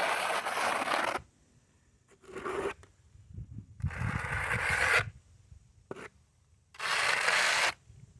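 A trowel scraping and spreading trowel-on asphalt patch filler across a blacktop driveway, in about four separate strokes of up to a second each, smoothing the fill over a low spot.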